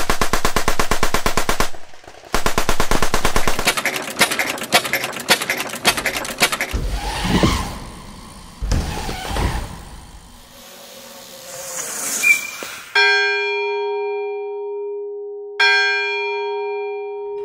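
A string of separate sound effects: rapid automatic gunfire in two long bursts, then a few low rumbles, then a bell struck twice, each strike ringing on and slowly fading.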